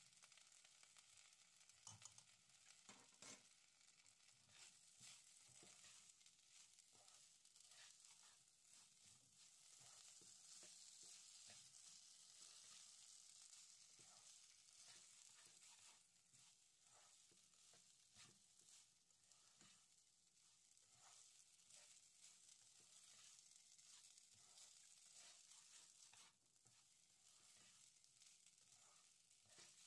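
Faint sizzling of raw rice frying in ghee and oil in a nonstick pan, with the scrape and tap of a slotted spatula stirring it at irregular intervals.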